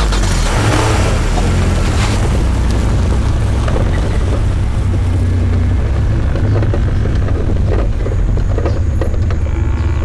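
Land Cruiser's engine running with a steady low rumble, with a few faint knocks through it.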